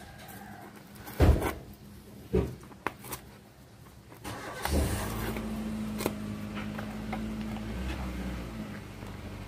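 A few loud knocks and a click as the subwoofer cone is handled on a wooden bench. About five seconds in, an engine starts up and runs steadily at one pitch for about four seconds, then fades.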